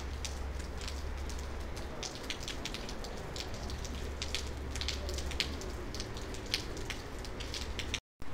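Steady rain falling, with many sharp ticks of drops striking nearby surfaces. The sound cuts out briefly near the end.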